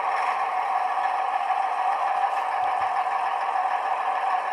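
An ESU V4.0 sound decoder in a Piko H0 model of a class 612 Regio-Swinger diesel railcar plays a diesel engine running steadily through the model's small loudspeaker, with no deep bass.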